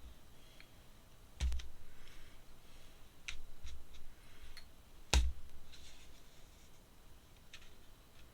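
Drawing pens being handled on a desk: sharp clicks and knocks, two louder ones with a dull thump about a second and a half in and about five seconds in, between faint scratching of a pen on paper.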